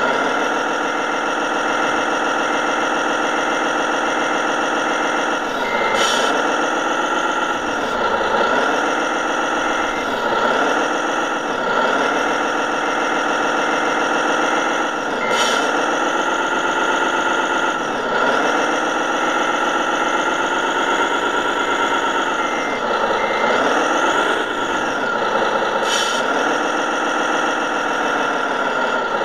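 Radio-controlled model truck's sound module playing a truck diesel engine, its pitch dipping and climbing again several times as the throttle changes. Short hisses come three times, and a steady dotted beeping runs through parts of it.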